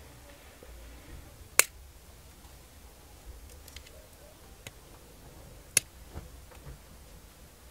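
Pliers working red enamelled copper wire coiled on a thin steel rod: two sharp snaps about four seconds apart, with a few faint metal clicks between.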